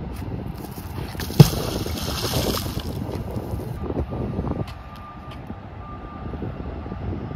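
Wind buffeting the microphone in a steady low rumble, with one sharp knock about a second and a half in.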